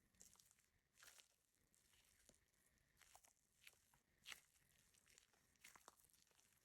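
Very faint, irregular crinkling and ticking, a few soft crackles a second with the strongest about four seconds in.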